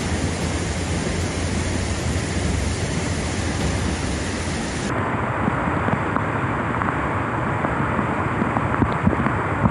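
Fast-flowing floodwater rushing through a street in heavy rain, a steady loud rushing noise. About halfway through it cuts to another recording of heavy rain over floodwater, duller and with less hiss.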